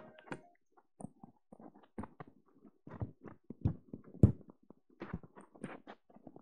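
Irregular soft knocks and clicks of handling at a laptop, picked up by the presenter's microphone; the loudest knock comes about four seconds in.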